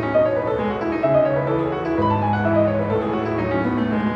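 Background instrumental music: a melody of short stepping notes over held lower notes.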